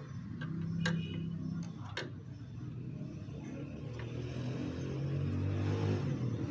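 A few light clicks as steel rods are adjusted in a plastic cap fitted to a motorcycle fuel tank's filler mouth, over a low steady hum.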